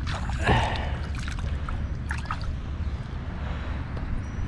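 Shallow pond water sloshing and dripping around a hand holding a bass under the surface to revive it, with a short splash about half a second in.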